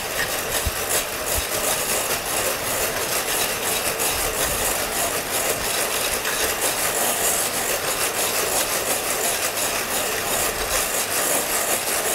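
Electric hand mixer running steadily, its twin beaters whisking egg whites and sugar in a glass bowl.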